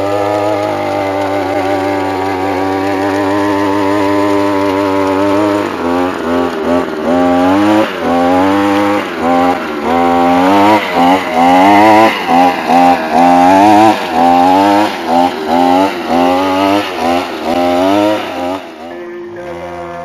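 Petrol brush-cutter engine driving a rotary weeding tine attachment through paddy mud. It runs steadily at first, then revs up and down about once a second as the throttle is worked and the tines bite into the soil, and drops back toward idle near the end.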